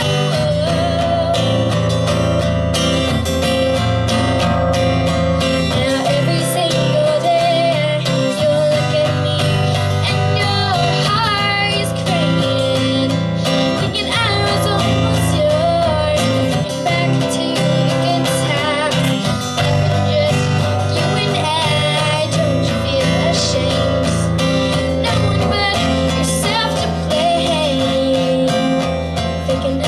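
Music: strummed acoustic guitar accompanying a woman singing a song.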